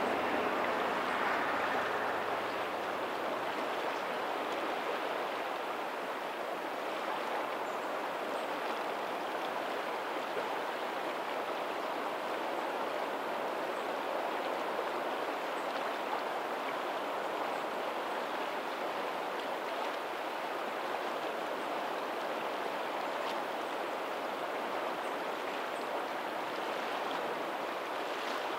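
Steady rushing of tidal outflow water running over a pebbly lagoon shore, with faint ocean surf behind it. A faint low hum fades out in the first two seconds.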